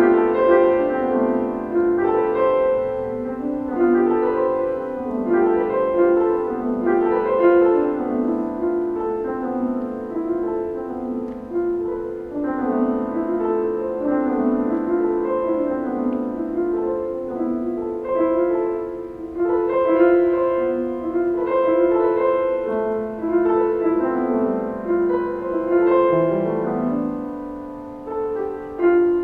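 Piano music: a steady flow of struck notes and chords, each fading as the next is played.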